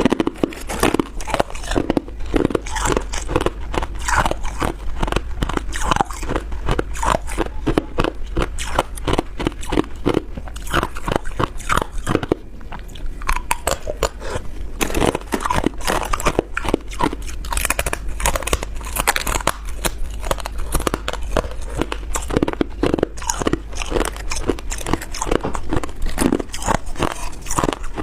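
Close-up crunching of ice being bitten and chewed, a rapid, steady run of sharp cracks and crackles.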